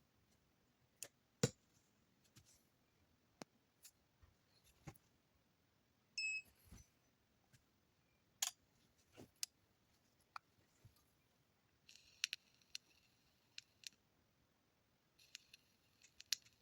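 Faint, scattered clicks and taps of small tools and parts being handled, with brief rustles and one short electronic beep about six seconds in.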